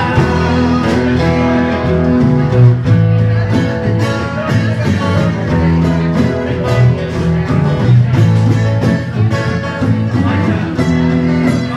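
Live band playing a rock song: strummed guitars over bass and drums.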